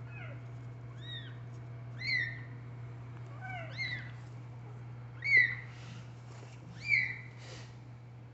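Young kittens mewing: about six short, high-pitched cries, each rising then falling, a second or so apart, with the loudest two in the second half.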